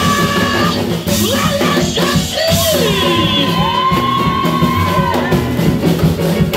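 Live church praise music, loud and dense: a singer's voice over a drum kit and band, with one long held vocal note about halfway through.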